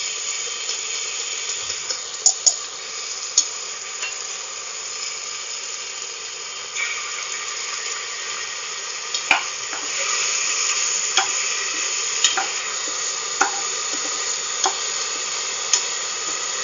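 Oil sizzling steadily in an aluminium pressure cooker as whole spices and tomato sauce fry, stirred with a steel spoon and spatula. Sharp clicks of metal knocking on the pot come about once a second in the second half.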